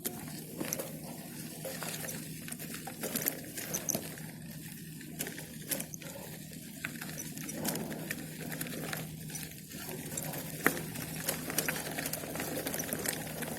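Rattling and irregular clicking from a moving bicycle on an uneven surface, over a steady low hum.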